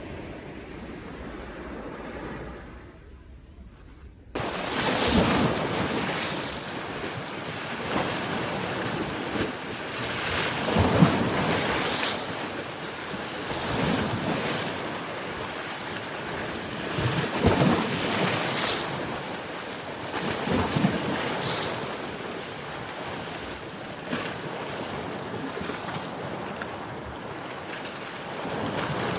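Sea surf: waves breaking and washing on the shore. A soft, even wash of water jumps suddenly to louder surf about four seconds in, after which waves crash and draw back every few seconds.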